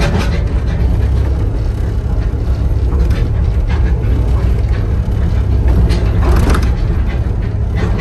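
Komatsu PC60-7C excavator's 4D95LE four-cylinder diesel engine running steadily, heard from inside the cab, with a few short clicks and rattles over it, the most marked about six seconds in.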